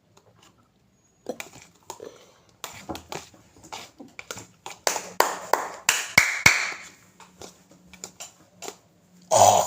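Slime being mixed by hand in a container: an irregular run of taps, clicks and wet squishes, busiest around the middle, with a louder burst near the end.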